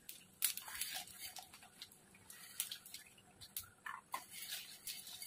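Mustard seeds and dals frying in hot oil in an aluminium kadai, crackling with scattered, irregular sharp pops: the tempering stage of the dish.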